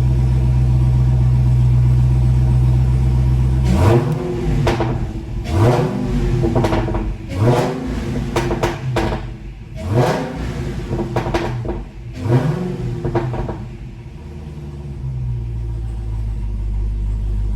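Supercharged 6.2-litre Hemi V8 of a Dodge Challenger Hellcat with long-tube headers, idling steadily, then revved in a string of quick throttle blips from about four seconds in, each rising and falling, before it settles back to idle near the end.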